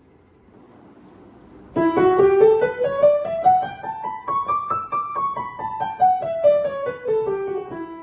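Electronic keyboard in a piano voice playing a scale one note at a time, starting about two seconds in. It climbs two octaves from E and comes back down to the starting note, fitting the E Dorian scale played with one hand.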